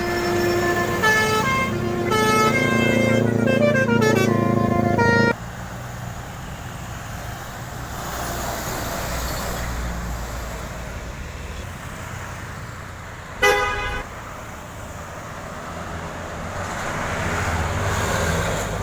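A bus's Basuri telolet horn playing a multi-note melody that cuts off suddenly about five seconds in, over passing traffic. Road noise follows, with one short horn blast about two-thirds of the way through and a vehicle passing, louder near the end.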